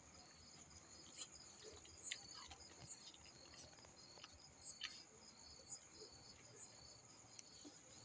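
Faint crickets chirping: a steady high trill with a second, pulsed chirp repeating a few times a second, and scattered faint clicks.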